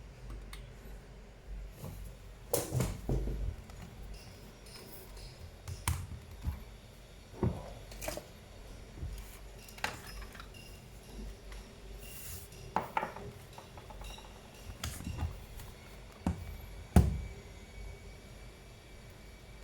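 Scattered clinks and knocks of small hard objects being handled, about ten in all, the loudest near the end.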